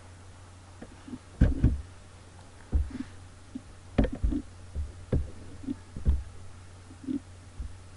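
Irregular low thumps and knocks, about a dozen and the loudest about one and a half seconds in, over a steady low electrical hum.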